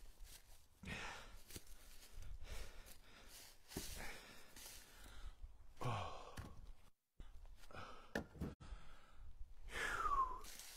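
A man sighing and breathing hard from exertion, a breathy exhale about every two seconds and a falling, voiced sigh near the end, while he tosses split firewood into a pickup truck bed. A few sharp knocks are heard as the wood lands.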